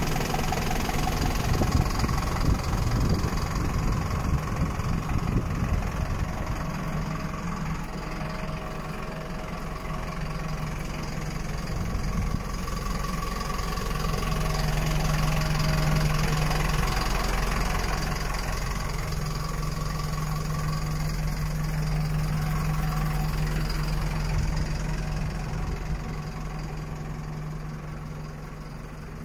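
Mercedes-Benz Atego 1018 truck's diesel engine idling steadily, a low, even rumble with a constant hum.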